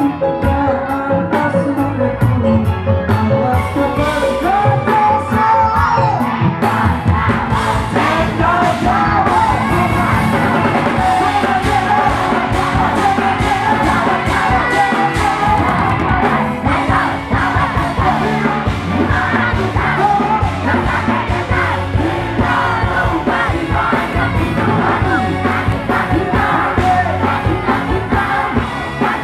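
Live band with drum kit, electric guitar and keyboard playing loudly through a PA, with a singer over it and the crowd yelling and singing along.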